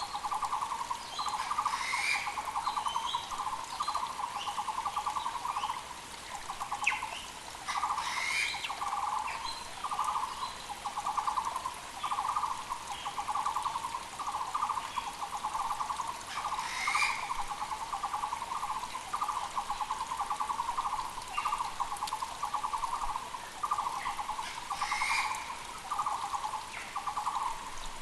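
A Taiwan barbet (Muller's barbet) calls without a break: a rapid, low, pulsed phrase repeated about once a second. Small birds chirp higher above it, and a louder call from another bird comes about four times.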